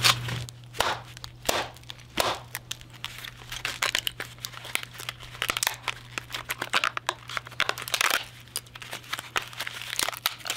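Hard plastic casing of a Dell laptop battery pack cracking and snapping as it is knocked against concrete and pried apart by hand to free the 18650 cells inside: an irregular run of sharp clicks and cracks with crinkling, one louder crack about two seconds in and a thick cluster of snaps near eight seconds.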